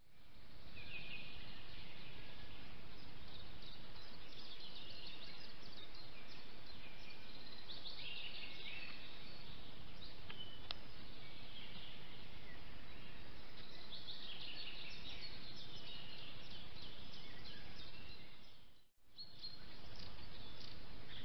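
Several wild birds singing in spring woodland, short chirps and trills overlapping, over the steady hiss of a trail camera's microphone. The sound drops out briefly near the end and the birdsong resumes.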